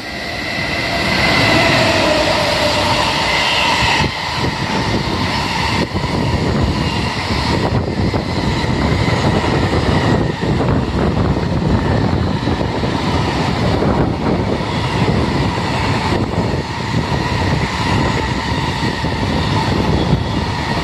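JR Freight EF210 electric locomotive drawing near and passing close by, loudest about two seconds in, with a whine in the first few seconds. Then a long train of container wagons rumbles past with a steady clatter of wheels over the rails.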